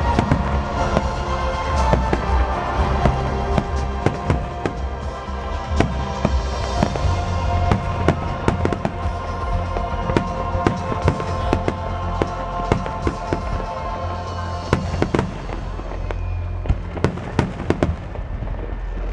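Aerial firework shells bursting in rapid succession, a rolling low boom studded with many sharp cracks, over music with sustained tones. The music thins out near the end.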